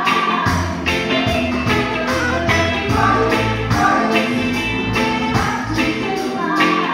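Live reggae band playing with a steady beat: drums, bass, electric guitar, keyboards and saxophone, with a woman singing over it.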